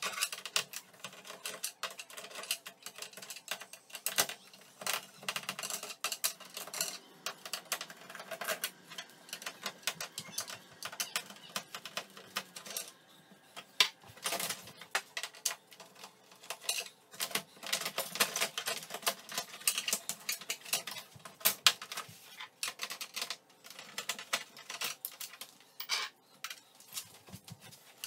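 Hand screwdriver undoing the screws on an LCD TV's plastic back cover: a busy run of small clicks, ticks and scrapes.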